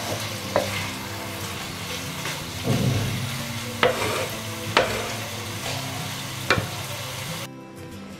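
Gobi Manchurian (sauce-coated fried cauliflower with onion and capsicum) sizzling in a wok while a wooden spatula stirs it, with a few sharp clacks of the spatula against the pan. The sizzle cuts off suddenly near the end.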